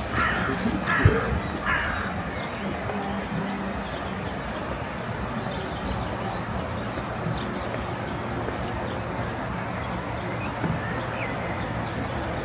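A bird gives three short harsh calls, one after another in the first two seconds, over a steady outdoor background noise.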